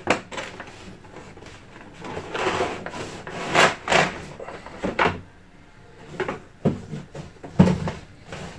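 Cardboard packaging scraping and rubbing as a boxed CPU cooler in its cardboard insert is slid out of the box, in a series of swishes. A few knocks follow, then a louder thud near the end as it is set down on the desk.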